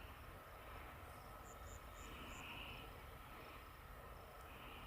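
Faint outdoor ambience: a low rumble with a short run of soft, high chirps about a second and a half in.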